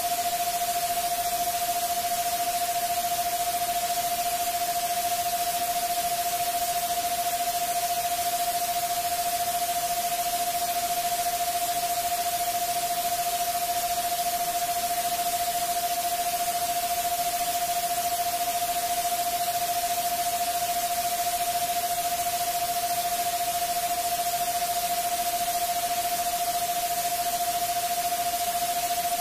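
Synthesized subliminal-frequency track: a steady hiss of white noise with a single unchanging mid-pitched pure tone held underneath it.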